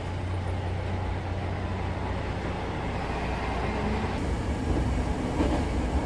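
Train running, a steady low rumble with an even wash of noise.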